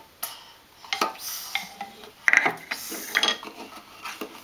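Light clicks, knocks and scrapes of toy dishes and a plastic toy food carton being handled against the stainless steel sink bowl and wooden counter of a child's play kitchen, in a scattered string of small hits.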